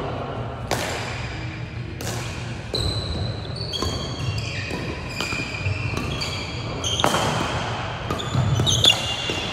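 Badminton doubles rally: rackets smack the shuttlecock about once a second, mixed with short high squeaks of court shoes on the wooden gym floor. Each hit echoes in the hall.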